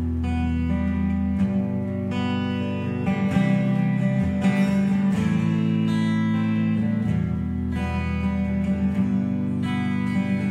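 Electric guitar playing ringing chords in an instrumental passage of a song, the chords changing every second or two, with no singing.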